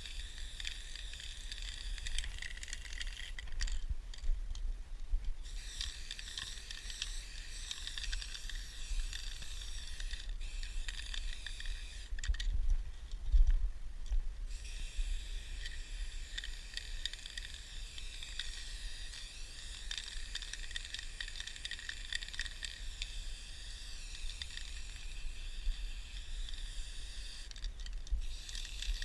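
Aerosol spray-paint can hissing in long sprays, cutting off a few times when the nozzle is released: once about four seconds in for a couple of seconds, again for about two seconds around the middle, and briefly near the end.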